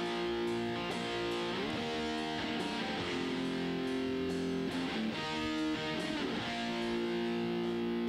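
Electric guitar playing sustained strummed chords that change every second or so. It is played back through a software compressor set to a 5 ms attack.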